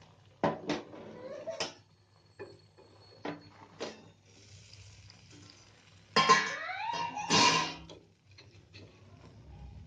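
Metal utensils clinking and knocking on a hot tawa, with a faint sizzle of sandwiches frying in ghee. About six seconds in comes a louder, rising metal scrape lasting about a second and a half.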